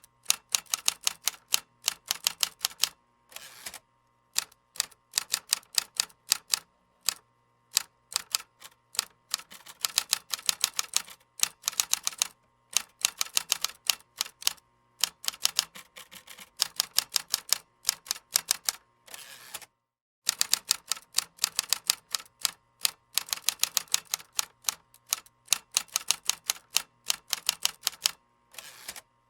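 Computer keyboard typing: rapid key clicks in runs of a few seconds, broken by short pauses, the longest about two-thirds of the way in. A faint steady hum lies underneath.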